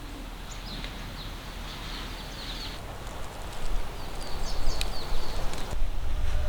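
Strong gusty wind buffeting the microphone, a rough rumble that grows louder and more uneven about halfway through, with small birds chirping now and then.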